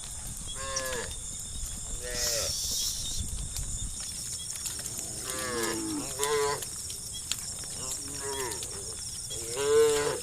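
Cows mooing: a string of about seven short calls, some overlapping, the loudest near the end.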